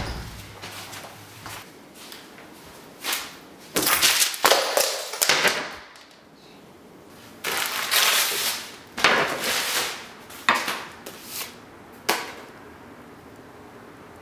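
Wrapping paper being torn and crumpled off a long staff, in several rustling, ripping bursts spread over about nine seconds.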